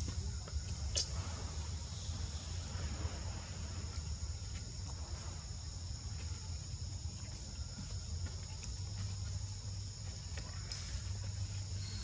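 Steady insect chorus: a continuous high-pitched drone in two close pitches, over a low steady rumble, with a few faint ticks.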